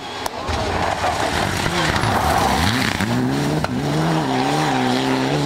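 Mitsubishi Lancer Evolution rally car sliding on gravel with loose stones spraying. Its turbocharged engine then revs hard as it accelerates away, the pitch climbing, dropping briefly at a gear change and climbing again.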